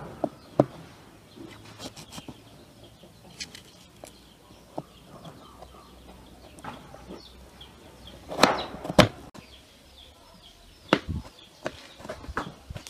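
Kitchen knife slicing an onion on a wooden cutting board, with scattered sharp knocks of the blade and onion against the board, the loudest a pair about two thirds of the way through. Faint bird chirps in the background.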